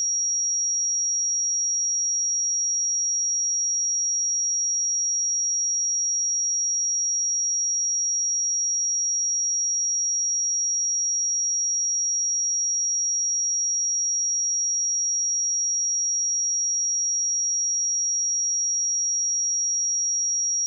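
Pure electronic sine-wave test tone at 5671 Hz, a single high-pitched steady tone at constant level, used for testing speakers and headphones.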